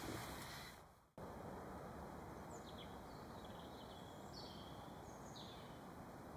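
Faint birds chirping, a handful of short, high, falling calls, over a quiet steady background hiss. The background fades away about a second in, then cuts back in.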